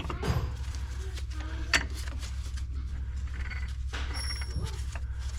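Metal gear and shift parts of a tractor's high/low range transmission being handled by hand: scattered clicks and scrapes, a sharp click about two seconds in and a brief high metallic ring about four seconds in, over a steady low hum.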